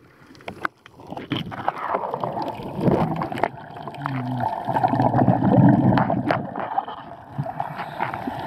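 Underwater water noise picked up by a snorkeler's swimming camera: rushing and gurgling water with scattered clicks and knocks as the swimmer kicks with fins, building up about a second in.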